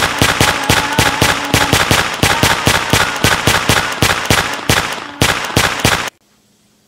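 Rapid automatic gunfire sound effect, about six or seven shots a second, with a boy's held yell underneath; it cuts off abruptly about six seconds in.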